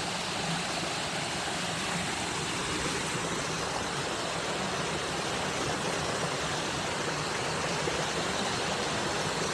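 Steady rush of stream water pouring over rocks at a small cascade.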